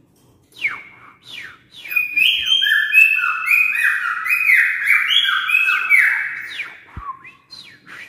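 A caged songbird singing a loud, rich run of overlapping whistled notes that rise and fall, from about two seconds in until about seven seconds. Before and after the run come short falling whistles, about two a second.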